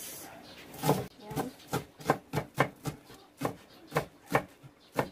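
Kitchen knife chopping green onions on a wooden cutting board: sharp knocks of the blade on the board, about three a second, starting about a second in.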